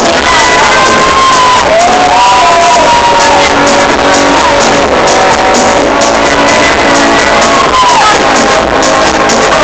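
Loud live music with a few sliding, wavering tones over dense sustained sound.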